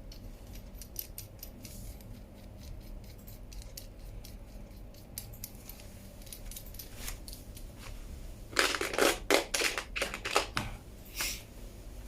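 Light metal clicks of a bicycle crank puller being fitted into a square-taper crank arm, with a louder run of quick metal clicks and rattles near the end.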